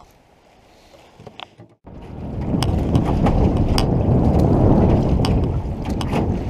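Wind buffeting the microphone and choppy water slapping against an aluminum canoe, starting loud about two seconds in after a quiet stretch, with scattered light knocks.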